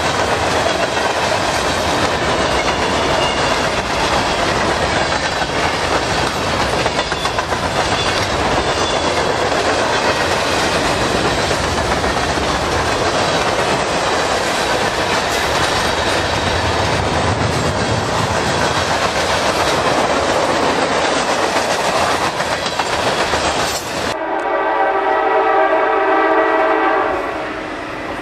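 Freight cars of a passing train rolling by close, a steady rumble with the clickety-clack of wheels over rail joints. About 24 s in it gives way to an approaching diesel locomotive sounding one long blast on its multi-chime air horn.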